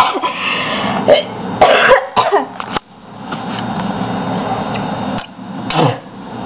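A person coughing and clearing their throat in several short bursts over the first three seconds, with one more near the end, typical of choking on a drink they can't stomach. A steady rustling noise runs underneath in the second half.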